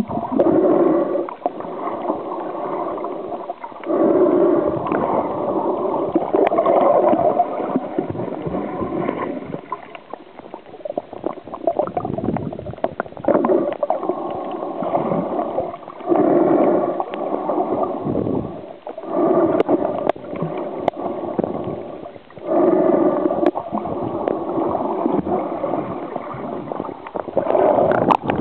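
Muffled gurgling and sloshing of water heard through an underwater camera, swelling into louder surges every few seconds.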